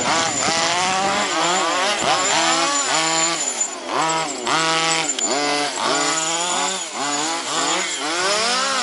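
Two large-scale RC cars' 26cc two-stroke petrol engines running hard, their pitch climbing and dropping over and over as the throttle opens and closes, the two engines overlapping.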